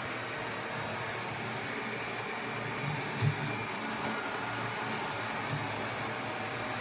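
ILIFE A4s robot vacuum cleaner running steadily, its suction motor and brushes giving an even whirring hum, with one short knock a little over three seconds in.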